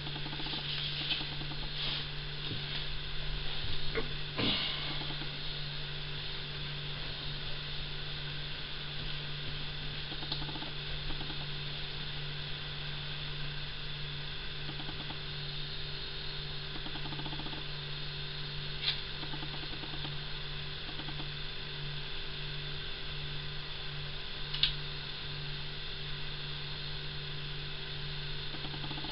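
A steady low electrical hum with hiss over it, and a few brief faint clicks.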